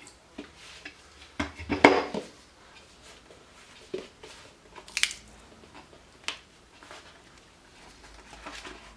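Wooden book-press boards knocking and clattering as the press is opened and a freshly bound leather-covered notebook is taken out: a cluster of knocks about two seconds in, then a few single sharp knocks and taps.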